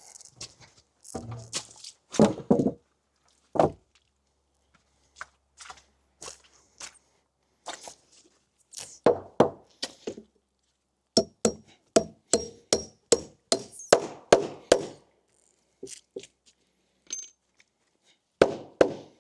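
Hammer driving nails into wooden deck framing: scattered knocks, then a quick run of strikes about three a second around the middle, each with a short metallic ring.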